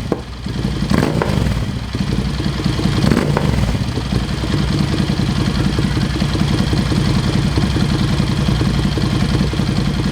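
Ducati Scrambler 803's air-cooled L-twin running through an HP Corse Hydroform slip-on exhaust. It is blipped up briefly twice in the first few seconds, then runs steadily with an even pulsing beat.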